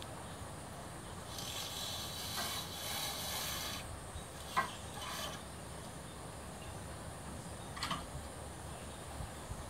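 A cord run through a pulley to roll up a woven blind on a wardrobe front, giving a rasping rustle lasting about two and a half seconds. A few sharp clicks and scrapes follow, as of clothes hangers knocking on the rail.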